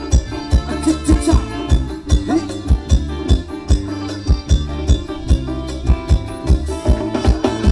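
Thai ramwong dance music from a live band over loudspeakers: a steady drum beat, about two strokes a second, under sustained melodic instrument lines, without singing.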